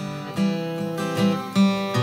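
Acoustic guitar strummed in chords, with several distinct strokes, as the instrumental lead-in to a worship song.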